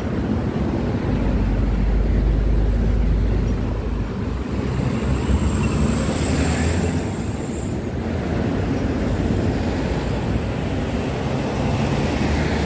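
Street traffic passing close by: cars and a truck, their engines and tyres making a steady rumble, with a deeper engine rumble in the first few seconds and a thin high whine about halfway through.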